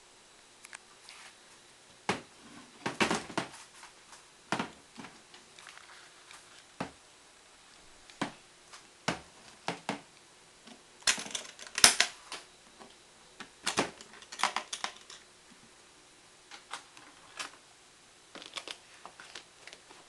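Aluminium-framed hard carrying case being opened by hand: metal latches clicking open and the lid and case clacking and knocking, in scattered sharp clicks and short clusters, loudest about twelve seconds in.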